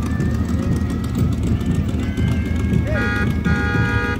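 Steady low rumble of vehicles and crowd, then a vehicle horn honking twice near the end: a short honk and then a longer one.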